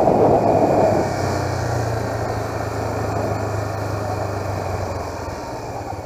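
Motorcycle engine running at low revs with wind rushing past. The rush drops after about a second as the bike slows, leaving a steady low engine hum that fades near the end.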